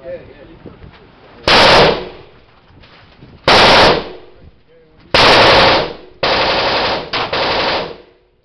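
Handgun shots in an indoor range: three single shots about two seconds apart, each with a short echo, then a longer run of rapid, overlapping reports near the end.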